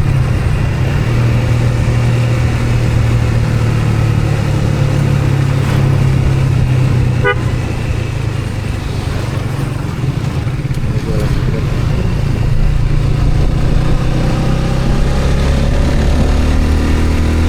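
Motor vehicle on the move: a steady engine and road drone, with a brief horn beep about seven seconds in.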